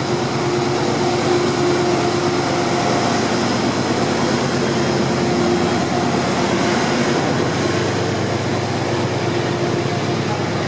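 GE P32AC-DM dual-mode diesel locomotive passing close by under power, its diesel engine running with a steady hum and whine. About seven seconds in, the engine tones fade and the rolling rumble of the passenger coaches following behind takes over.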